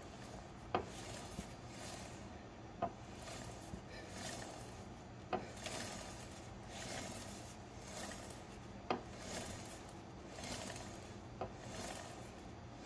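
Yamaha FZ1's drive chain rolling over its sprockets as the rear wheel is spun by hand, a rubbing whir that swells and fades, with a sharp click every two to three seconds.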